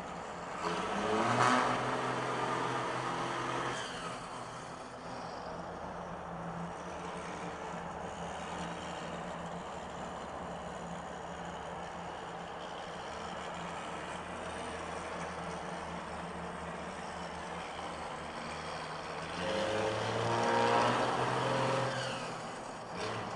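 Straight-piped exhaust of a 1993 Dodge Cummins 5.9 L inline-six turbo diesel, heard from inside the cab. It is pushed harder twice, about a second in and again about 20 seconds in, rising and growing louder. In between it holds a steady drone at cruise.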